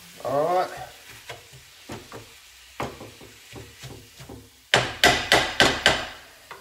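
Wooden spatula knocking and scraping against a frying pan as pork mince is stirred: scattered light clicks, then a quick run of about six loud knocks near the end.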